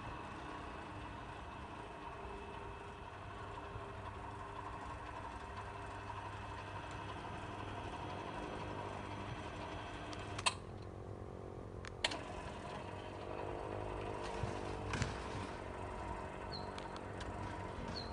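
Electric gate automatics running: a steady motor hum of a gate drive at work, with two sharp clicks about ten and twelve seconds in.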